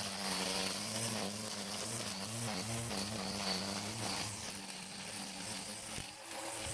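Black & Decker 18V cordless string trimmer running with a steady electric-motor hum. The pitch dips briefly about two and a half seconds in, as the spinning line meets grass.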